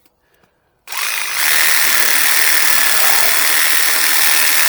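A handheld power cutting tool starts about a second in, briefly rising in pitch as it spins up, then runs steadily at full speed, cutting.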